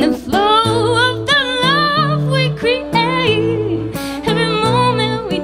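A woman singing a wavering, bending melody into a microphone over her own acoustic guitar, live.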